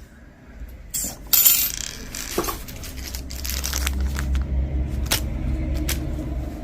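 Small metal costume jewelry pieces clinking and rattling together as they are handled and sorted by hand, with several sharp clinks, the loudest about a second and a half in. A low rumble grows underneath in the second half.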